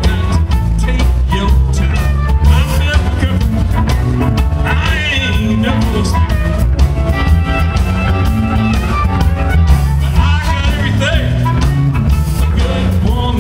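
Live blues band playing: amplified harmonica wailing with bent notes over electric guitar, electric bass and drums keeping a steady beat.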